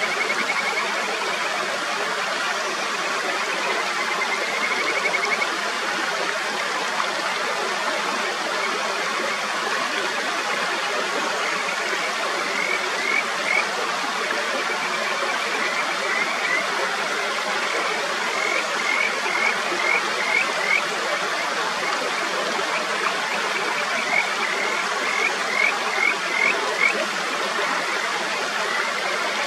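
Mountain stream rushing steadily over rocks, with Kajika frogs (Buergeria buergeri) calling over it: a faint trill near the start, then several runs of three to five short rising whistled notes.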